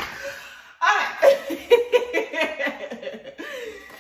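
A person laughing in quick, high-pitched bursts, starting about a second in and ending on a falling cry.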